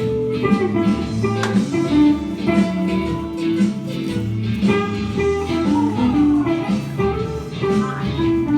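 Guitar music: plucked notes moving in a melody over sustained low bass notes.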